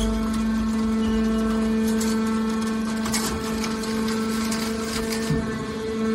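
Hydraulic can baler's motor and pump running with a steady hum, with a few light knocks.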